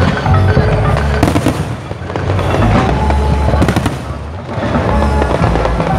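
Aerial fireworks display: a continuous run of low booms from bursting shells under a dense crackle, with sharp cracks about a second in and again near four seconds.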